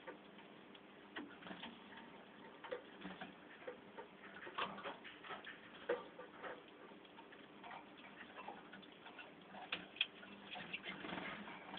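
Faint, irregular small clicks and taps from caged Waterslager canaries hopping on perches and cage wire and picking at seed, with the birds briefly starting to call again near the end.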